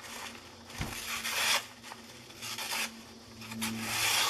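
Edge of a Cold Steel Pendleton Lite knife, freshly sharpened on a natural stone, slicing through a sheet of paper in a paper-cutting sharpness test: about three hissing, scraping slices.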